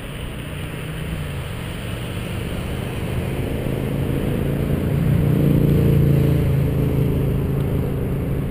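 Road traffic heard from a bicycle: a passing car's engine grows louder as it comes up alongside, loudest about six seconds in, then eases off, over a steady low road rumble.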